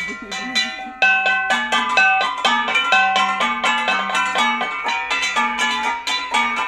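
Several gangsa, flat bronze gongs, beaten with sticks in a quick, steady interlocking rhythm, the ringing strokes overlapping. They get louder about a second in.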